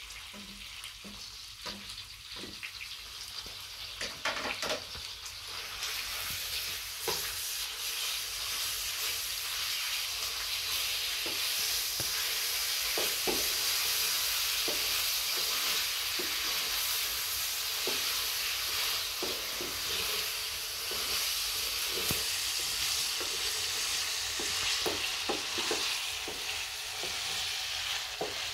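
Goat liver and tomatoes sizzling in a frying pan, the frying hiss swelling a few seconds in and then holding steady. A wooden spoon stirs the food, scraping and knocking against the pan now and then.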